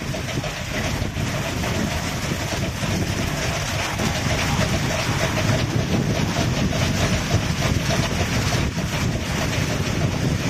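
Automatic rollover car wash machine running: a steady rushing noise with a faint wavering hum underneath.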